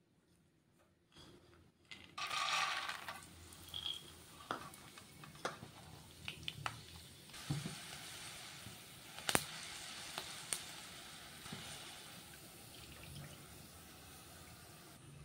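Peanuts going into hot oil in a steel wok about two seconds in with a short loud burst of sizzling, then steady frying hiss scattered with sharp clicks and pops, one louder crack about halfway through.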